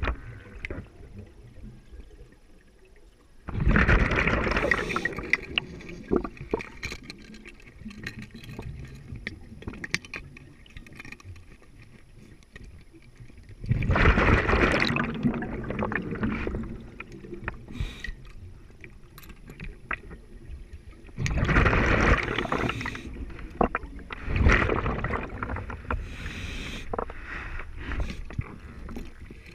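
Underwater, a scuba diver's breathing-gas bubbles gurgle and rush past the camera in four loud surges, each about two seconds long. Between them are a quieter hiss and scattered small clicks and knocks of gear.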